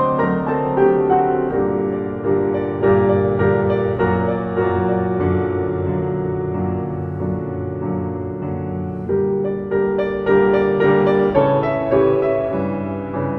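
Background piano music: single notes of a slow melody over held chords.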